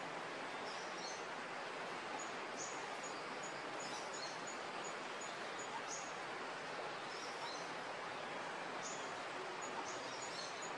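Outdoor ambience: a steady hiss with small birds chirping high and quick throughout, including a run of short, evenly repeated high pips about three a second.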